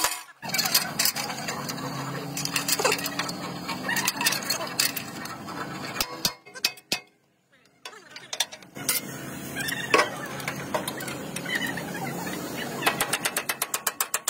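Hammer blows on a steel truck frame: sharp metallic strikes, with a quick, regular run of blows near the end and a steady workshop din between them.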